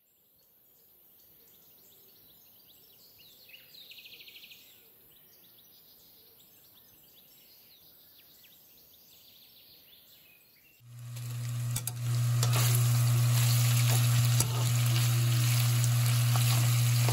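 Meat sizzling loudly as it fries in a pan, over a steady low hum, starting suddenly about eleven seconds in. Before that it is quiet, with a brief faint rapid ticking about four seconds in.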